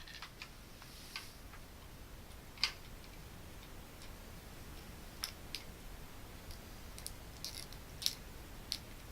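Quiet, irregular small clicks and taps from a plastic wire nut being twisted onto electrical wires by hand. The sharpest click comes a few seconds in, with a cluster of clicks near the end.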